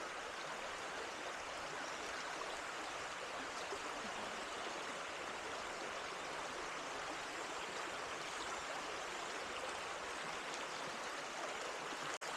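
Small creek's water running steadily, an even rushing hiss with no change. The sound drops out for an instant near the end.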